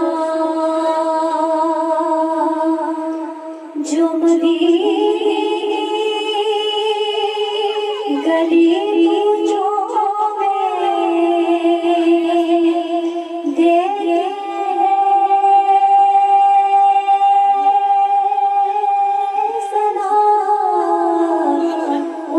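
Women's voices singing a devotional naat in praise of the Prophet, with long held notes that step up and down in pitch.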